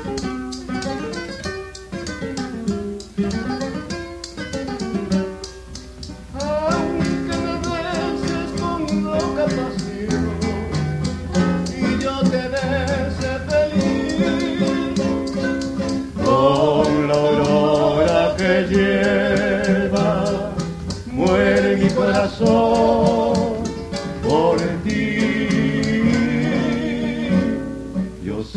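Bolero played by a guitar trio: an instrumental break of plucked acoustic guitars, the lead guitar's running melody over the chords, with maracas shaking a steady beat. The playing grows fuller and louder about six seconds in and again around sixteen seconds.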